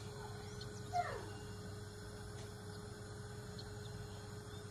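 Faint steady hum. About a second in, a single brief high cry slides down in pitch.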